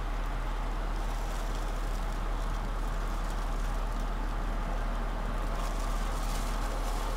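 Steady engine hum and hiss inside a parked car with its engine idling, as heard through a dashcam's microphone.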